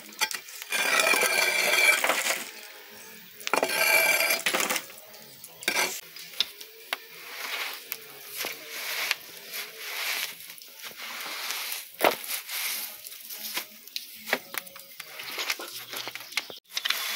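Hot embers and ash being scraped out of a wood-fired brick oven, with two loud stretches of scraping and clattering coals in the first few seconds. After that comes a run of short brushing swishes as a broom of leafy green branches sweeps the oven floor clean.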